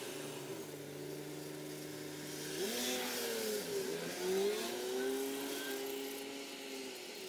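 A vehicle engine going by: a steady hum that climbs in pitch about two and a half seconds in, dips and climbs again, with a brief rush of noise at its loudest, then fades away near the end.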